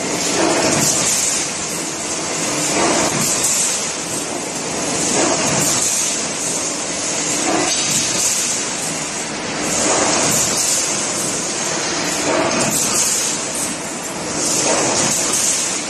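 Multi-roller sheet-metal leveling line running on test: a steady mechanical hiss and rumble that swells and eases about every two and a half seconds.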